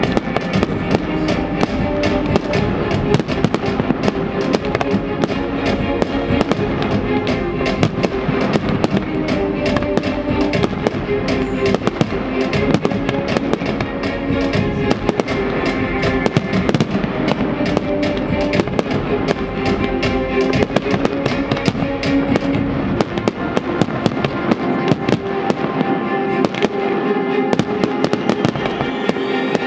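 Aerial firework shells bursting in quick succession, a dense run of sharp bangs and crackles with music playing underneath.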